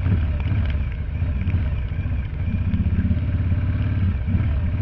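Harley-Davidson motorcycle's V-twin engine running steadily with a low, pulsing exhaust note as the bike rides on a snow-covered street.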